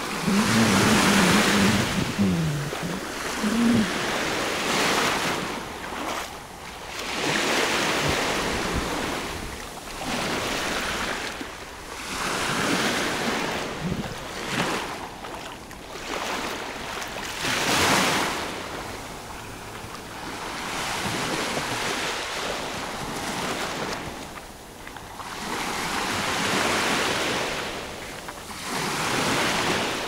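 Small Mediterranean waves breaking and washing up onto a sandy shore, the surf rushing in and drawing back in surges every few seconds.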